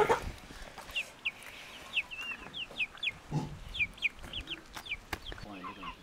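Chickens: a steady run of short, high peeps, a few each second, with a lower cluck about three and a half seconds in.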